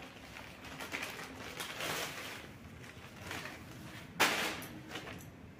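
Rustling of a plastic carry bag and crinkling of a cellophane-wrapped packet as items are pulled out and handled, in a few short bursts, the loudest crinkle about four seconds in.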